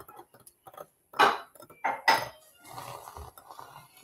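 Handheld battery milk frother whirring as it froths soy milk in a glass measuring cup, with two loud clinks of the wand in the glass about one and two seconds in.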